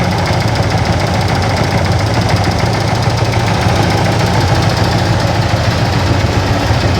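Yamaha FZ16 Fazer's single-cylinder, air-cooled four-stroke engine running steadily, making an unusual noise that worries the owner.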